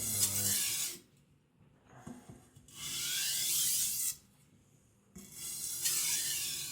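A large chopper knife's blade drawn across a wet whetstone in three slow strokes, each a gritty scrape lasting about a second, with short pauses between. The passes are taken at a raised angle of about 20 degrees to put a small, stronger bevel on the edge.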